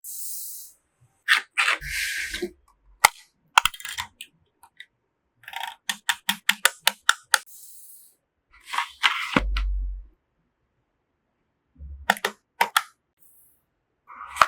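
Computer parts being handled and fitted during a PC build: a series of sharp plastic and metal clicks and snaps in short bursts, including a quick run of about ten clicks in the middle, separated by moments of complete silence.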